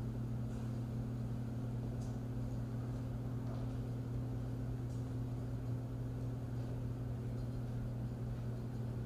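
A steady low hum with a fainter tone an octave above it, and a few faint ticks.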